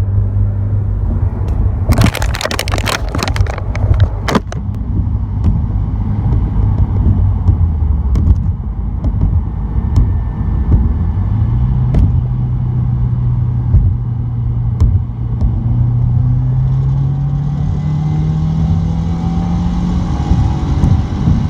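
2017 Subaru WRX's turbocharged flat-four under load, heard from inside the glove box. Between about two and four seconds in there is a burst of loud rattling. The engine note then climbs steadily as the car accelerates, a hiss builds in as it reaches high boost, and near the end the revs drop. The noise at high boost turned out to be a boost leak.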